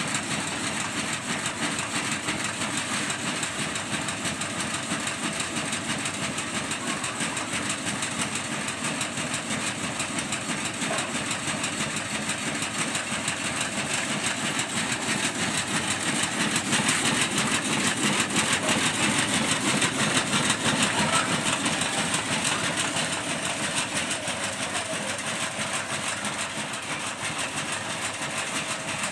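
Double-screen maggot sifting machine running: a steady mechanical rattle of the shaking screens over motor noise, a little louder in the middle.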